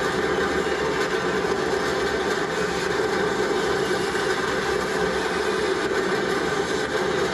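Massed fireworks rockets firing together in a steady, dense rushing hiss with no let-up, heard through a television's speaker.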